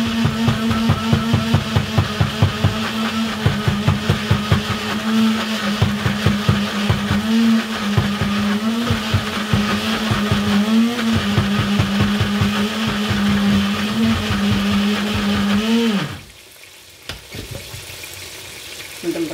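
Electric countertop blender grinding dried chilli, chilli and ginger into a smooth paste: a steady motor hum with a fast rattle, its pitch wavering briefly a few times under the load. About three seconds before the end the motor winds down and stops, followed by a couple of light knocks as the jar is handled.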